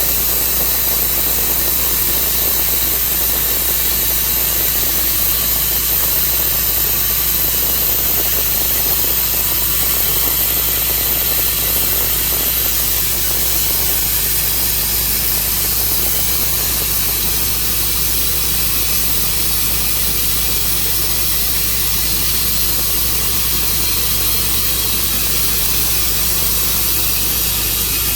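Engine-driven saw running steadily at constant speed, cutting through an elm crotch.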